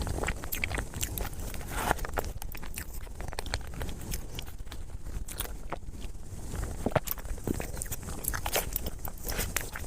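Close-miked eating of chocolate mousse cake: wet chewing and mouth clicks, with many short sharp ticks over a steady low hum, the sharpest about seven seconds in.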